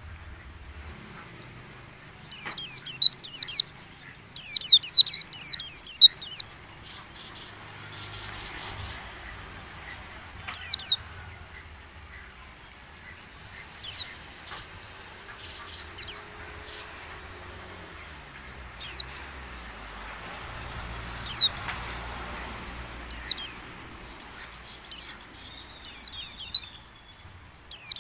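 A white-eye (pleci) singing high-pitched twittering phrases: two longer bursts a few seconds in, then short chirps every couple of seconds, with a faint steady high hiss underneath.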